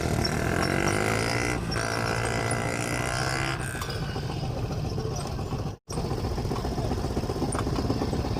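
An elderly woman snoring: a long, pitched, rasping snore for about the first three and a half seconds, then a rough, steady rumbling breath. The sound cuts out briefly near six seconds.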